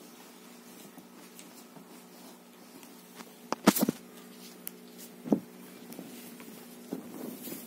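Handling noise of a phone camera being moved and covered: a loud cluster of knocks about halfway through, a single knock a little later and a few softer taps near the end, over a steady low hum.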